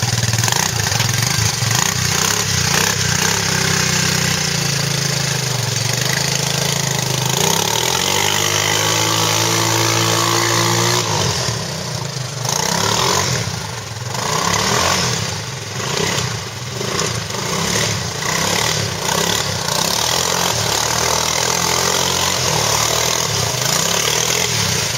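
Quad (ATV) engine running and revving under load. Its pitch climbs steadily for a few seconds before the middle, then drops, and the sound surges and dips unevenly before settling into a steady run.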